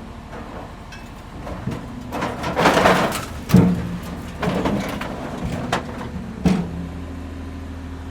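Construction site sounds: a machine's engine running steadily, with a scraping, crunching burst about two and a half seconds in and two sharp metallic clanks that ring briefly, one near the middle and one past six seconds.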